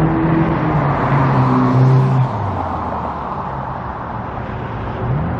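A motor vehicle passing close by. Its engine hum is steady, then drops in pitch and the road noise falls away about two seconds in.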